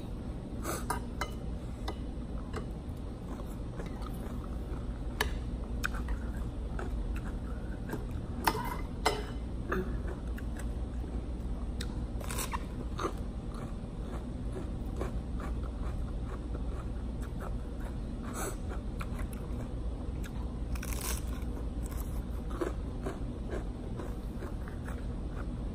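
Close-up chewing and crunching of cucumber salad with instant noodles: crisp bites into raw vegetable and wet chewing, with scattered sharp clicks, two of the loudest a little over eight seconds in.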